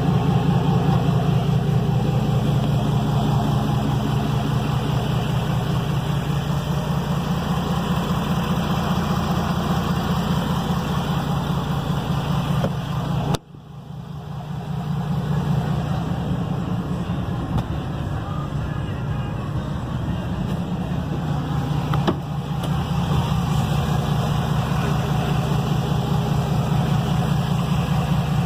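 Pickup truck engine idling, heard at its exhaust as a steady, even pulse. The sound drops out sharply for a moment about halfway through, then builds back to the same steady idle.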